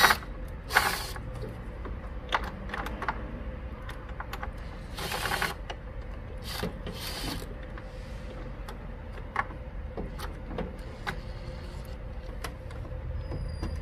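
Scattered clicks, clinks and short scraping rasps of a ratchet with a 10 mm socket and extension working on a car battery's metal hold-down bracket, over a steady low hum.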